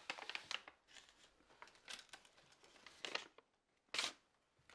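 Faint rustling and crinkling in a few short bursts, one just at the start and others about two, three and four seconds in, with quiet room tone between.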